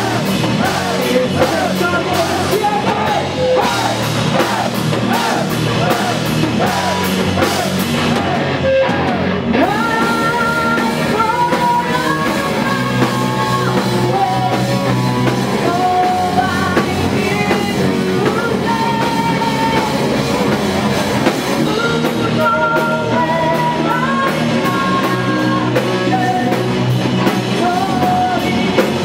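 Live metal band playing loud and fast: pounding drum kit and distorted electric guitars under sung lead vocals. The cymbals drop out briefly about nine seconds in, after which long held melody notes carry the song.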